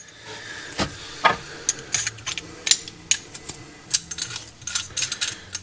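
Small copper plumbing fittings and an isolating valve being handled, giving irregular light clicks and clinks of metal, over a faint steady low hum.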